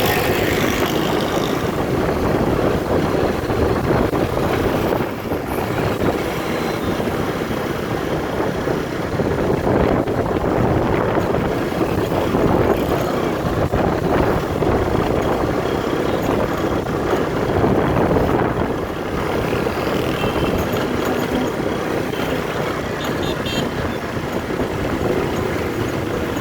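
Steady road traffic noise: motor vehicles running past, with engine and tyre noise and no single event standing out.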